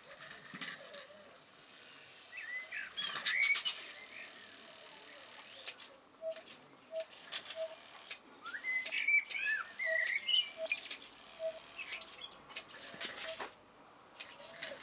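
Small birds chirping, with quick rising and falling chirps in two clusters. Through the middle a call of short, evenly repeated notes sounds about every half second. Scattered sharp clicks and knocks are heard among the calls.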